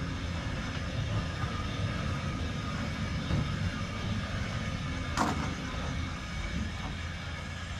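A steady low mechanical rumble, with one sharp metallic clank about five seconds in.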